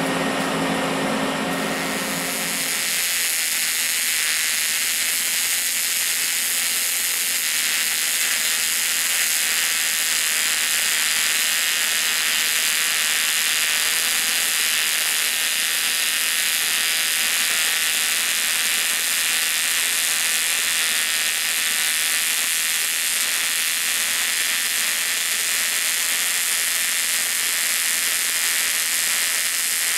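TIG welding arc on aluminum from an Everlast PowerPro 205S, striking about two seconds in and then running as a steady hiss for the rest of the bead.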